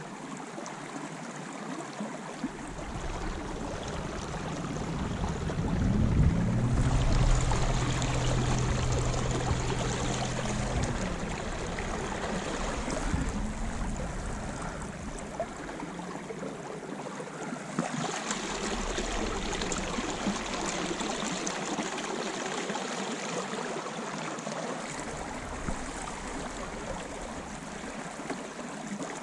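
Water lapping and trickling against the tubes of an inflatable pontoon boat moving across a pond. A low hum rises in about six seconds in and stops a few seconds later.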